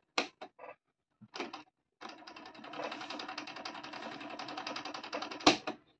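Cassette deck transport keys on a Sansui CP-55W boombox clicking a few times, then the tape fast-winding with a busy mechanical whirr for about three and a half seconds, stopped by a sharp click.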